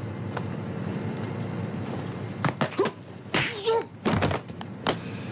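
Film fight-scene sound effects over a steady soundtrack hiss: from about two and a half seconds in, a quick series of sharp blows and thuds as kicks land and a body hits a door.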